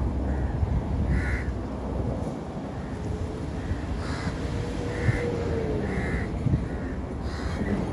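Birds giving several short, harsh calls spaced a second or so apart, over a steady low rumble of background noise.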